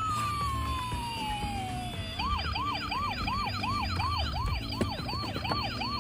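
Electronic toy siren: one tone sliding down in pitch over about two seconds, then switching to a fast warble that sweeps up and drops about two and a half times a second.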